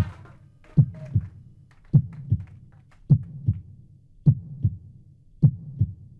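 Heartbeat sound effect: a low double thump, lub-dub, repeating about every 1.2 seconds, five beats in all. The last tones of a music sting fade out in the first second.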